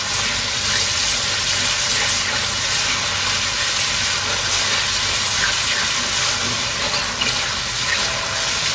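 Pieces of mature chicken frying in hot oil with fried spice paste and tomato paste in a pot, a steady sizzle.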